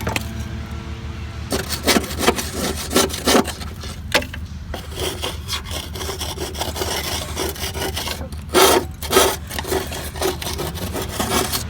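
Grass buildup being scraped off the underside of a lawn mower deck with a makeshift scraper, in repeated uneven strokes.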